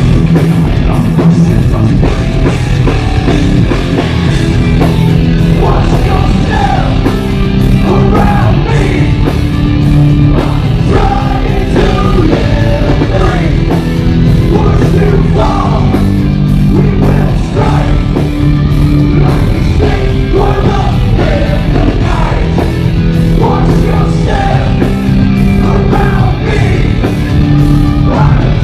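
Heavy metal band playing loud live: distorted electric guitars, bass and a steady drum beat with cymbals.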